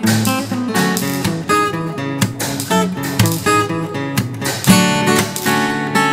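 Background music: a solo acoustic guitar playing a quick, busy run of notes.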